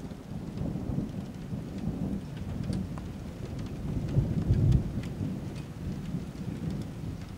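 Rolling thunder from a cloud-to-cloud lightning flash about 6 km away: a low rumble that swells, peaks about four and a half seconds in, then eases off. Rain falls throughout, with the ticks of single drops.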